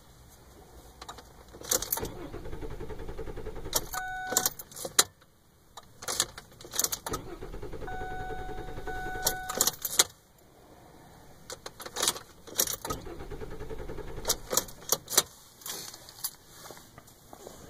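2007 Ford Fusion's six-cylinder engine cranking on the starter three times, each for about three seconds, without catching: a car that won't start. Keys jangle and click at the ignition around each attempt, and brief steady beeps sound twice.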